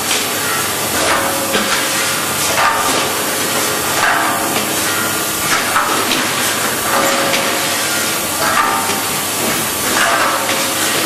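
A 12-head rotary syringe filling machine running: a continuous clatter of small clicks and knocks, with a surge of hiss about every second and a half.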